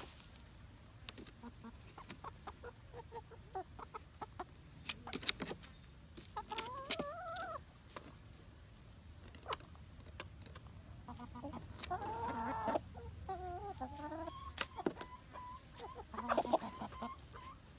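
Production Red hens clucking with drawn-out, wavering calls a few times, about six seconds in and again later on, over scattered small scratches and ticks of the hens working and pecking the dust-bath sand.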